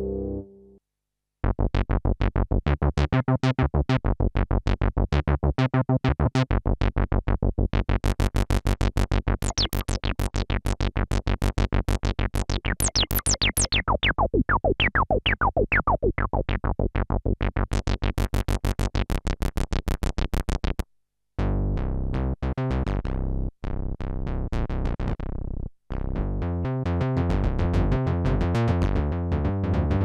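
DinoPark's Prodyssey, a DSP model of the ARP Odyssey synthesizer, playing a fast run of rapidly repeated short notes, with sweeping tones rising and falling through the middle. About two-thirds of the way in it stops briefly, and a denser, choppier rhythmic synth pattern starts.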